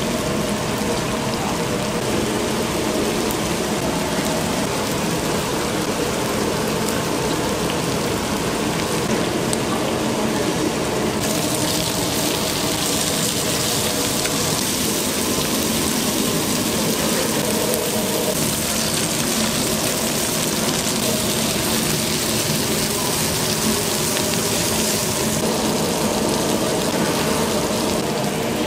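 Battered pollack fillets frying in oil: a steady sizzle that turns sharper and more hissing from about eleven seconds in until a few seconds before the end.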